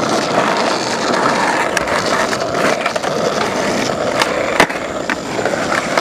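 Skateboard wheels rolling over rough asphalt with a steady grinding rumble, broken by a few sharp clicks and one loud clack about four and a half seconds in.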